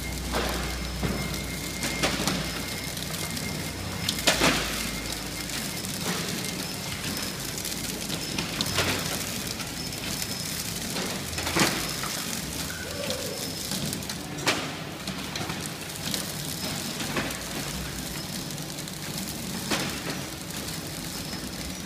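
PFM Hurricane horizontal flow-wrapping machine running while packing turnip trays: a steady mechanical hum with a faint high whine, broken by an occasional sharp click or knock every few seconds.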